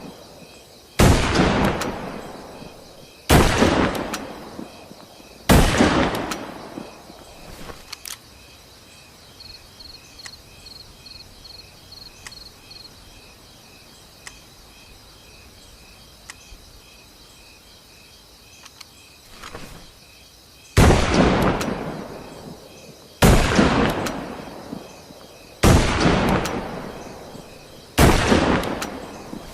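Winchester Model 70 bolt-action rifle firing seven shots, each a sharp crack with a ringing echo tail of a second or so. Three shots come about two seconds apart, then after a long pause four more at the same pace.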